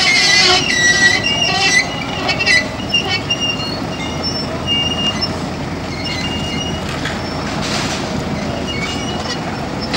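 Steady rumble of heavy rolling vehicles with high-pitched metallic squealing, strongest in the first two seconds and then coming in short intermittent squeals.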